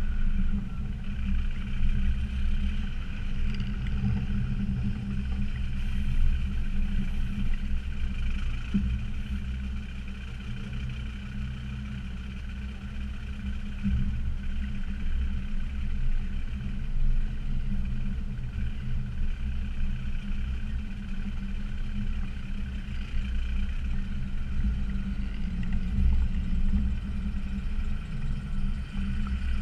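Land Rover Discovery Td5's five-cylinder turbodiesel engine running as the vehicle drives over a rough off-road track, a steady low rumble that eases off slightly for a few seconds in the middle.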